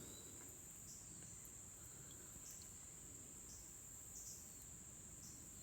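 Faint steady high-pitched trill of crickets, swelling slightly about once a second, over quiet outdoor background.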